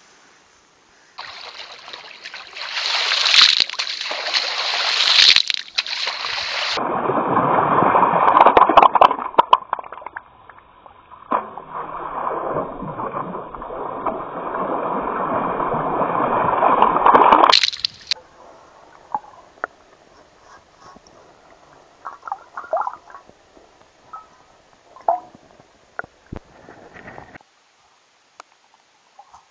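Water splashing and sloshing as a wader digs with a long-handled sand scoop in shallow lake water, for a long stretch that cuts off suddenly. Afterwards, faint scattered clicks and knocks, muffled as heard from a camera under the water.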